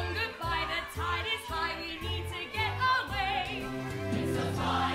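Live musical-theatre number: a band over a steady, repeating bass line, with singing voices holding notes with vibrato.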